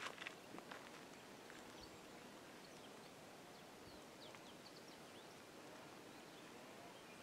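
Near silence: faint outdoor ambience with a few soft clicks in the first second and scattered short, high bird chirps.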